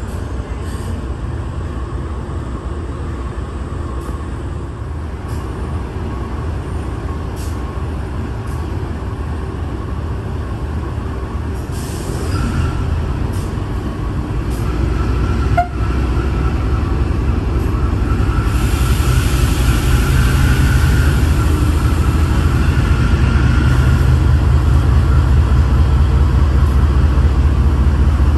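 Diesel freight locomotive running with a steady low drone that grows louder over the clip. A hissing comes in about two-thirds of the way through.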